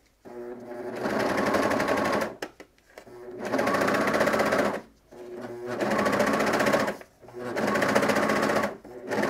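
Serger (overlocker) stitching along a terry towel edge, run in short bursts of one to two seconds with brief stops between, each burst picking up speed as it starts.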